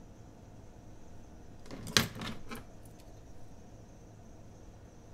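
Paper planner pages being handled and shifted on a desk: a short cluster of clicks and rustling about two seconds in, the first click the loudest, followed by two smaller ones.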